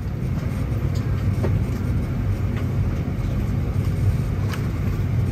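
Steady low rumble of an Airbus A320-200's cabin on the ground at the gate, with a few faint light clicks.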